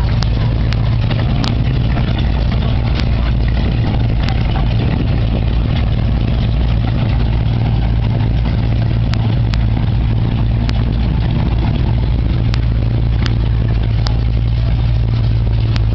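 Car engine idling close by: a steady deep rumble that does not change, with a few short sharp clicks over it.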